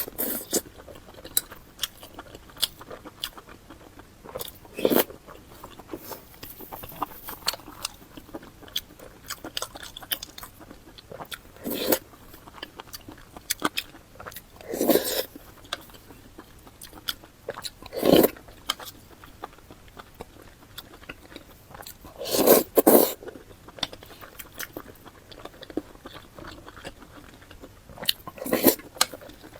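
Close-miked eating sounds: a person biting and chewing with wet mouth clicks, and a louder crunching bite every few seconds.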